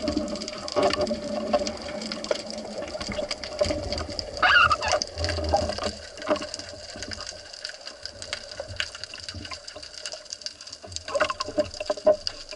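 Underwater sound as heard through a diver's camera: a steady water hiss with scattered crackling clicks, and a louder rush of water about four and a half seconds in during a spearfishing shot on a barracuda.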